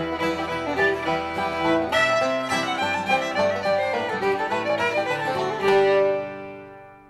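Instrumental background music with string instruments, ending on a held chord that fades out over the last second.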